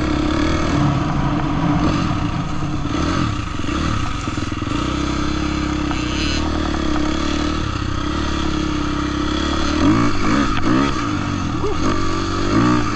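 Husqvarna dirt bike engine running under way, heard from on board the bike. Its note rises and falls a few times about ten seconds in and again near the end as the rider works the throttle.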